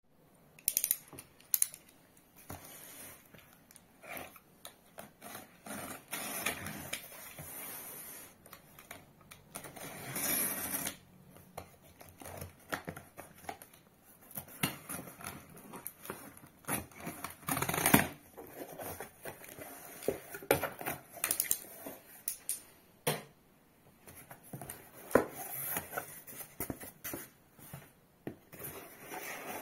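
Cardboard parcel being cut open and unpacked by hand: a utility knife scraping and slicing through packing tape, cardboard flaps handled and folded back, and plastic wrap and foam packing rustling near the end. Irregular scrapes, taps and clicks, with one longer scraping stretch about ten seconds in.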